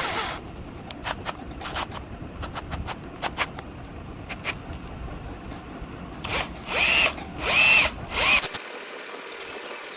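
Electric hand drill twisting a bundle of copper wires into a thick cable, run in several short bursts after a few seconds of scattered clicks and handling knocks. In each burst the motor's whine rises and falls in pitch as the trigger is squeezed and released.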